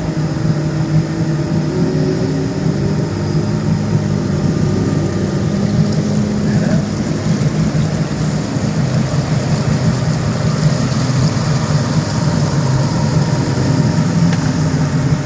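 Boat engines running steadily as boats motor out, a low hum with a tone that rises slightly in the first few seconds.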